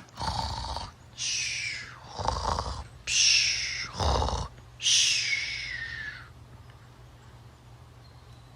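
A person's voice making about six short, breathy non-speech noises for the toy dinosaurs, the last one, about five seconds in, longer and falling in pitch.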